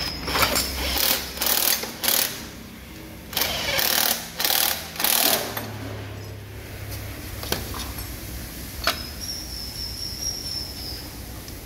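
A run of short metallic clanks and rattles from hands-on work on a diesel engine, about eight in the first half. After that it goes quieter, with a couple of single clicks.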